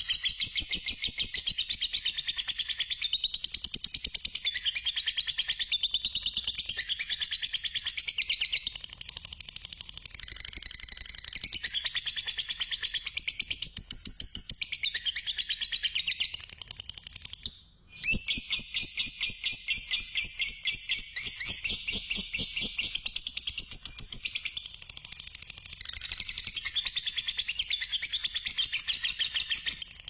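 Fischer's lovebird singing a long 'ngekek' chatter: a rapid, almost unbroken stream of high, shrill chirps. It stops for a moment a little past halfway, then starts again.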